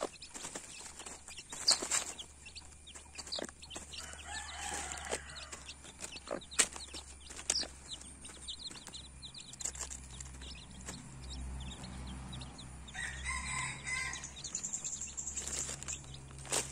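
Chicks peeping steadily while they peck crumbs off a leaf, with scattered sharp taps. A hen clucks twice, about four seconds in and again near the end.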